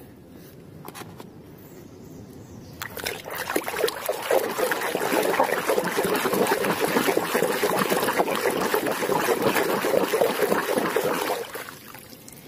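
A hand sloshing and splashing through muddy water in a plastic tub. It starts about three seconds in and dies down near the end.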